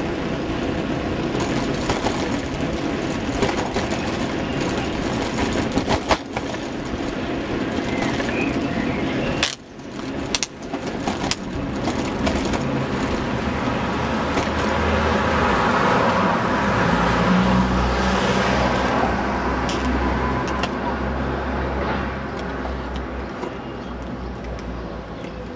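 Ride noise from a bicycle-mounted camera on a town road: wind rushing over the microphone with rattles and knocks from the bike. Passing motor traffic is mixed in, with a low engine rumble swelling through the second half.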